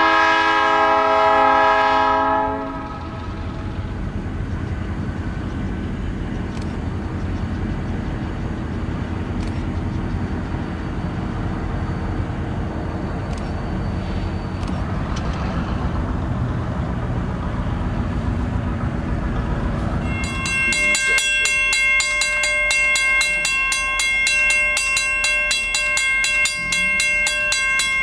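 Diesel locomotive horn sounding, breaking off about two and a half seconds in, followed by the low rumble of the locomotives and train passing. Near the end, a bell starts ringing rapidly and steadily, a railroad grade-crossing warning bell.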